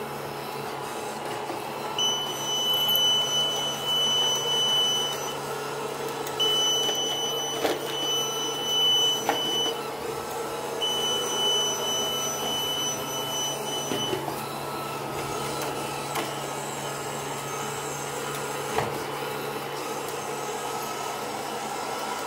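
Small robot vacuum cleaner running with a steady whirring hum. Three long, steady high-pitched tones, each about three seconds, come over it from about two seconds in, and a few light knocks are heard.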